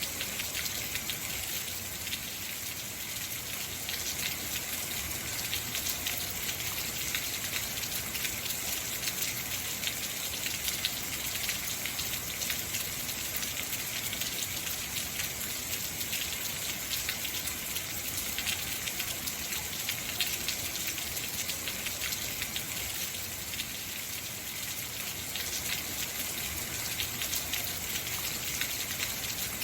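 Heavy rain falling steadily, a dense hiss of drops with many fine patters on hard surfaces.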